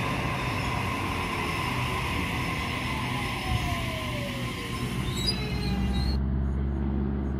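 Sydney Trains double-deck electric train running past and away: wheels on the rails with steady high-pitched whines, and a motor whine falling in pitch as it pulls away. The sound cuts off sharply about six seconds in to a low rumble.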